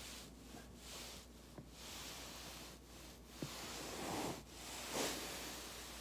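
Soft rubbing and rustling of a body moving on a foam roller, swelling and fading about once a second. A joint pops with a sharp click about three and a half seconds in, and a fainter click comes earlier.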